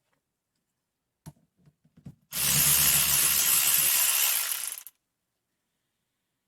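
RUYIKA 3/8-inch cordless electric ratchet running under its motor for about two and a half seconds, a loud whirring buzz that stops abruptly, after a click and a few small knocks.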